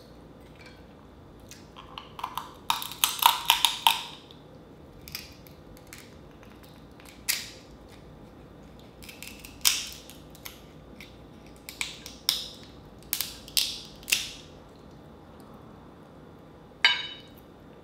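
Dungeness crab shell being cracked and snapped apart by hand, with the shell pieces picked at with a small fork. A dense run of cracks comes about two seconds in, then single sharp snaps every second or two, the last one near the end.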